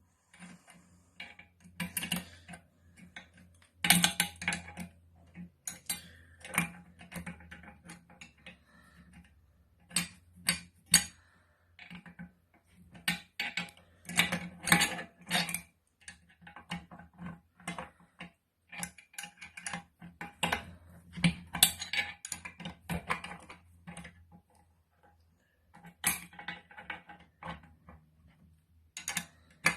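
Steel nuts, threaded rod and hand tools clinking and clicking irregularly as two nuts are run up and tightened against each other to lock them. A faint low steady hum runs underneath.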